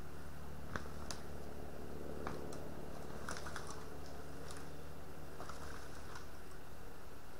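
A steady low electronic hum from the camera, with a dozen or so small scattered snaps and crackles of brush and twigs breaking as a person moves through forest undergrowth.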